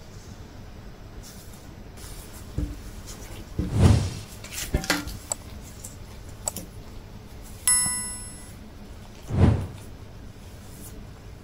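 Gloved hands handling and smoothing a wool sweater on a tabletop: soft rustling with a few dull thumps, the loudest about four and about nine and a half seconds in. A short bright ringing chime sounds near eight seconds.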